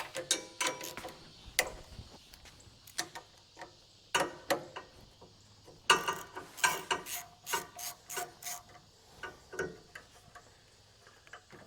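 Hand tools working on the Honda GX200 engine to remove its carburetor: irregular metal clicks, clinks and knocks, some ringing briefly, with no steady rhythm.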